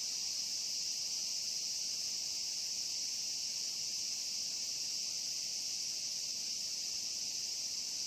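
A steady, high-pitched chorus of insects calling without a break.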